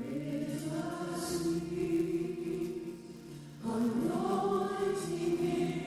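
Gospel choir singing slow, long-held notes in two phrases, the first breaking off just past halfway and the next beginning at once.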